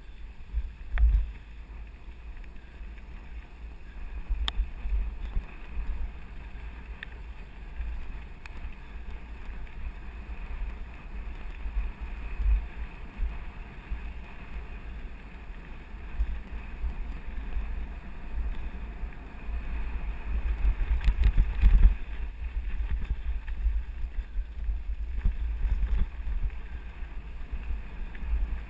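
Wind rumbling on a GoPro's microphone while a mountain bike rides along a dirt forest road, with tyre noise and the odd knock from the bumpy track. A louder stretch of jolts comes about 21 seconds in.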